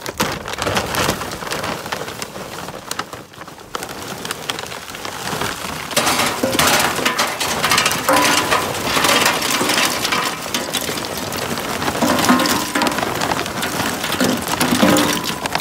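Lump charcoal pouring from a bag into the metal charcoal hopper of a Masterbuilt 1050 smoker: a dense, continuous clatter of pieces tumbling in, heavier from about six seconds in.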